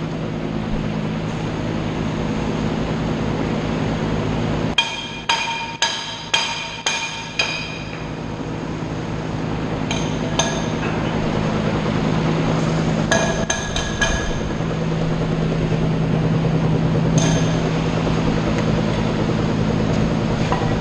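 Hammer striking steel with sharp, ringing blows: a quick run of about eight strikes about five seconds in, then scattered strikes in small groups. A steady low hum runs underneath.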